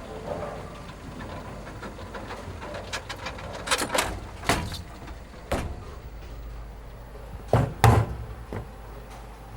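A series of sharp knocks and bangs over a steady low hum, loudest as two close together near the end.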